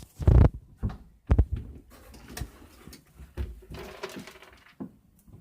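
Handling and movement noise: two dull thumps in the first second and a half, then soft rustling, shuffling and a few light knocks.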